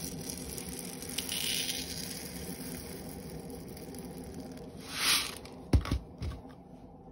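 Small drain-cleaner granules poured from a plastic bottle into its plastic screw cap, a light pattering hiss, louder briefly about five seconds in. Then two or three dull knocks as the bottle is set down on the sink drainer.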